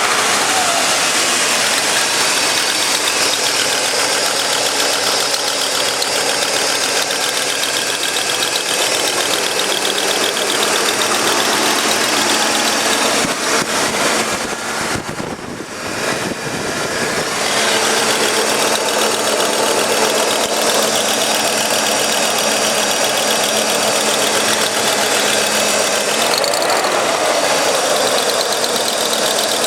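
BMW M62 4.4-litre V8 idling just after start-up, with a steady ticking over the engine note that the owner suspects is valve lifter noise. It goes briefly quieter about halfway through.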